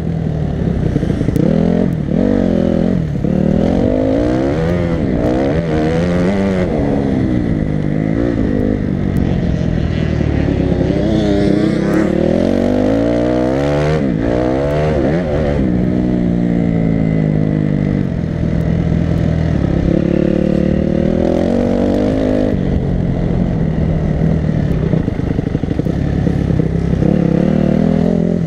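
Enduro motorcycle engine heard from the rider's helmet, revving up and falling back again and again through the gears as the bike accelerates and backs off, with a few stretches held at steady throttle.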